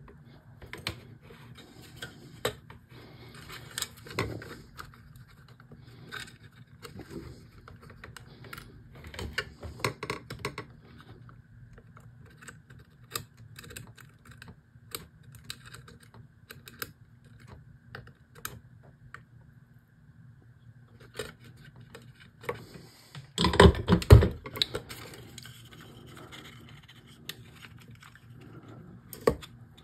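Small clicks, taps and rubbing from hands handling wire leads, a resistor, a soldering iron and a small plastic part on a tabletop, with a faint steady hum underneath. About three-quarters of the way through there is a louder burst of knocks and rubbing.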